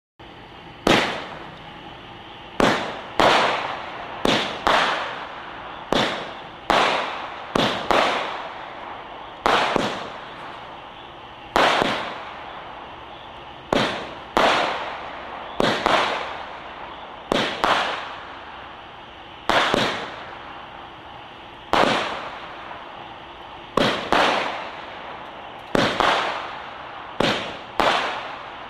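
Consumer aerial repeater firework cake (Jabs 'Hollywood Nights' C-11) firing shot after shot. About two dozen sudden bangs come an irregular one to two seconds apart, each fading away over about a second.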